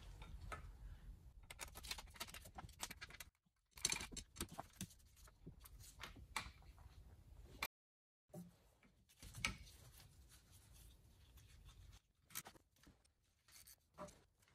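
Faint clicking of a ratchet as the lower starter bolt is wound in, in short stretches broken by brief silent cuts.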